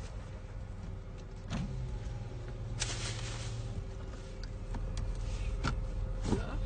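A car's cabin with the engine running, a steady low hum. A stronger low hum runs for about two seconds near the start, with a short hiss in the middle of it, and a few scattered clicks and knocks follow.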